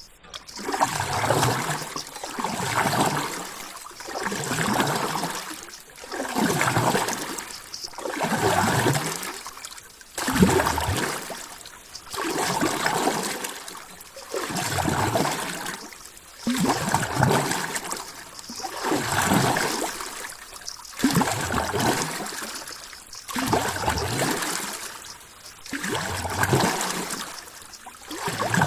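Rushing, trickling water that swells and fades in a regular rhythm, about one surge every two seconds.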